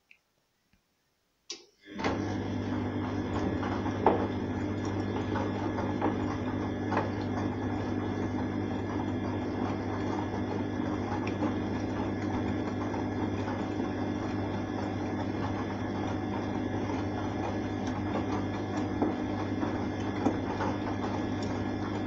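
Arçelik front-loading washing machine in the wash phase, its drum turning laundry through soapy water: a steady motor hum with water swishing and small irregular knocks. It starts after about two seconds of silence, with a single click just before.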